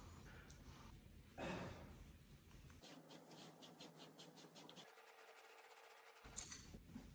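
Near silence: faint room tone, with a brief soft rustle about a second and a half in and a few faint clicks near the end.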